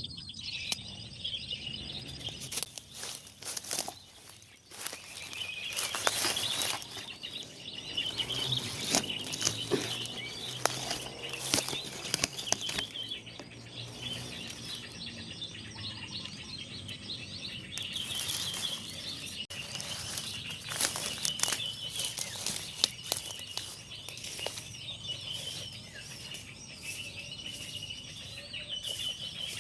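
Many small birds chirping continuously, with frequent sharp clicks and rustles close by.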